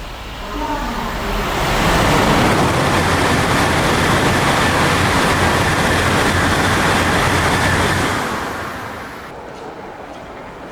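A high-speed Tokaido Shinkansen train passing at speed out of the tunnel, a rushing noise that swells in over a second or two, holds steady for about six seconds, then fades away.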